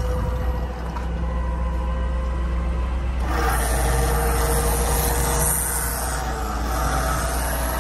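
Bucket truck's 6.4-litre gas engine running at idle, a steady low rumble with a steady whine over it, and a broader rush of noise that swells about three seconds in.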